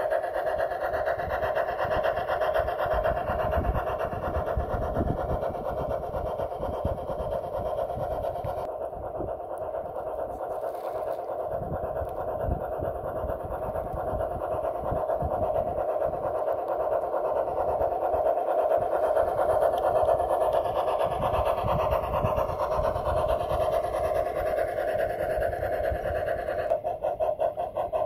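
Garden-railway model Climax geared locomotive running along the track: a steady whirring whine from its electric motor and geared drive, with a faster pulsing texture near the end.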